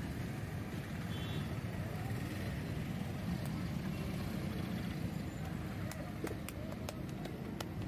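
Steady low rumble of road traffic, with a run of sharp clicks and taps in the last two seconds.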